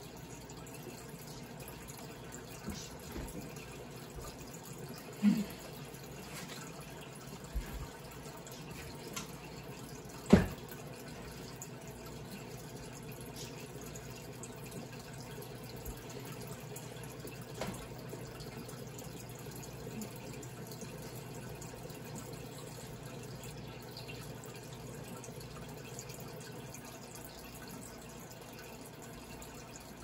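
Microwave oven running, a steady hum heard as playback through computer speakers, with a few faint clicks and one sharp click about ten seconds in.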